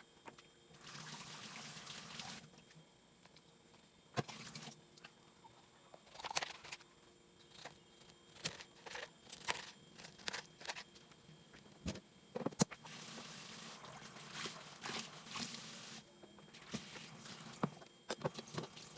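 Kitchen food-preparation sounds: scattered clicks and knocks of utensils and cookware, with a few stretches of liquid pouring or running lasting a second or more each.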